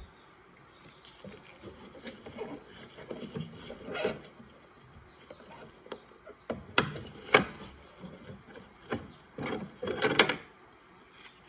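Gloved hands working the ATV's plastic air box strap and air filter core loose. Irregular rubbing and scraping of plastic, with several sharp knocks and clicks, the loudest about seven seconds in and again around ten seconds.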